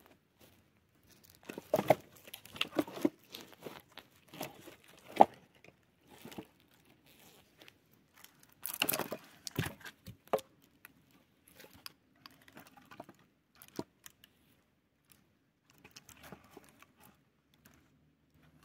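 Intermittent rustling, crinkling and tearing of handled material, with small knocks in between. The loudest rustle comes about nine seconds in.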